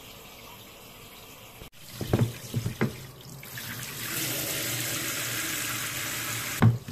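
Shower spray of water hitting a plastic jug and the floor of a plastic bathing tub, a steady rush that starts about halfway through. It follows a few short knocks and ends on a louder bump.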